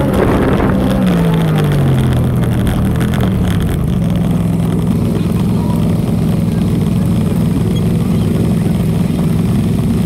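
ATV engine close to the microphone, dropping in pitch as the quad slows over the first few seconds, then idling steadily.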